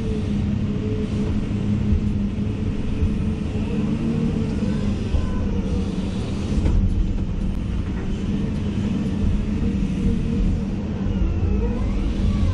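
Komatsu HB365 hybrid hydraulic excavator's diesel engine running steadily, with a fainter whine that rises and falls in pitch several times.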